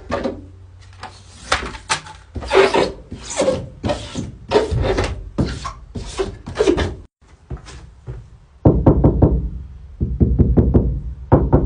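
Self-adhesive sound-deadening mats being rubbed and pressed onto a van's sheet-metal wall panel: short rubbing strokes about twice a second. From about nine seconds in, a louder run of rapid knocks on the panel.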